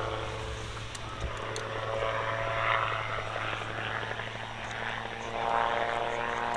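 Calidus autogyro's Rotax 914 engine and propeller running in flight, a steady drone that grows louder near the end.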